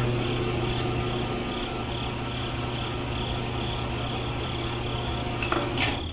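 Small electric motor of a miniature model cement mixer running with a steady buzzing hum, switched off with a click of its rocker switch near the end.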